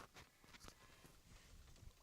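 Near silence, with a couple of faint clicks about a quarter and three-quarters of a second in.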